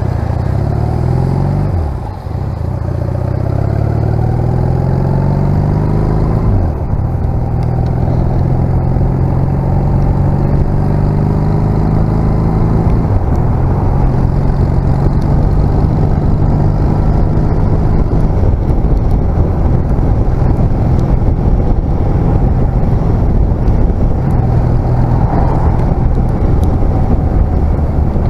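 1996 Honda CMX250C Rebel's parallel-twin engine pulling away and accelerating up through the gears. Its pitch rises, then drops at gear changes about two, six and a half and thirteen seconds in, before it runs steadily at cruising speed.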